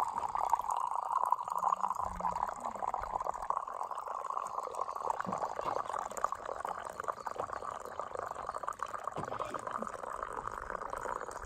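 Boiled coffee poured from a kettle in a thin, steady stream into an enamel camping mug.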